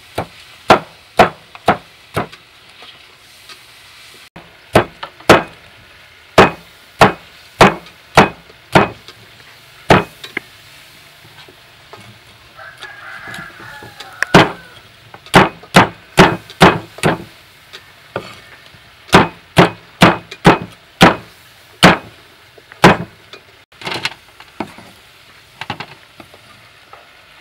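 Meat cleaver chopping crispy roast pork belly on a round wooden chopping block: a long series of sharp chops, about one to two a second, broken by a few short pauses.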